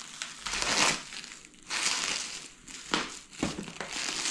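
Packaging crinkling and rustling in several irregular bursts as a box is unpacked.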